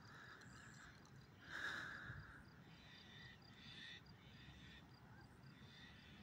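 Near silence: faint outdoor ambience with soft, repeated chirps.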